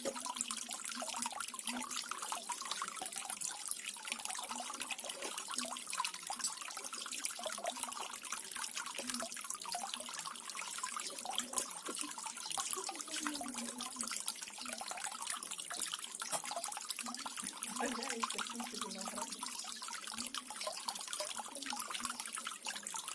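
Water from a small garden waterfall splashing and trickling in a steady, unbroken rush.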